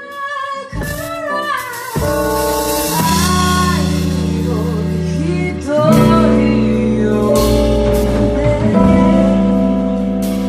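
Live band music with a singing voice over guitar, bass and drums. A gliding melody opens it, the bass comes in under a second in, and the full band joins at about two seconds.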